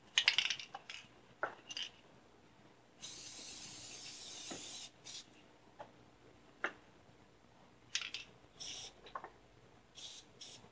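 Can of spray adhesive hissing in one steady burst of about two seconds, with shorter hisses near the end. Around it, clicks and rustles of handling the can and cloth, the loudest cluster at the very start.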